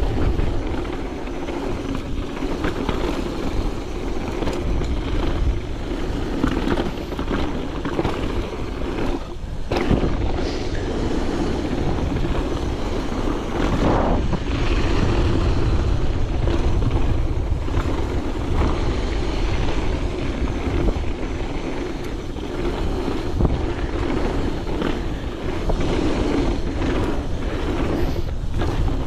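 Evil Wreckoning mountain bike riding fast down a dry dirt trail: steady tyre roar on the hardpack with wind buffeting the microphone, and frequent clicks and rattles from the bike over bumps.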